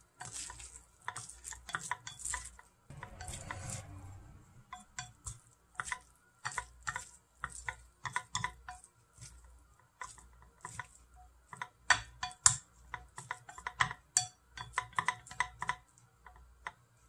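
Wooden chopsticks mixing a wet vegetable salad in a glass bowl, clicking and scraping against the glass in quick, irregular taps, with a softer swishing stretch about three seconds in.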